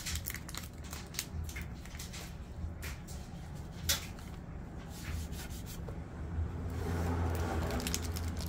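Handling noise: scattered small clicks and rustles from hands working the plastic scoop and its adhesive tape, over a steady low hum. A rushing noise builds near the end.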